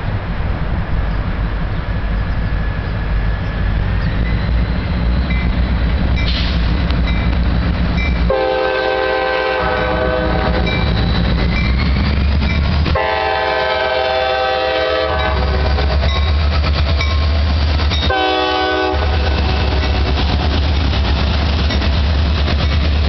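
Freight train led by CSX GP40 diesel-electric locomotives approaching and passing, the locomotive engines rumbling louder as they draw near. The lead locomotive's multi-chime air horn sounds two long blasts and then a short one, the long-long-short pattern that opens the standard grade-crossing horn signal.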